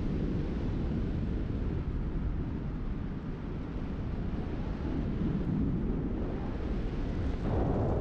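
Wind from the airflow of paragliding flight buffeting the microphone, a steady low rush that grows louder near the end.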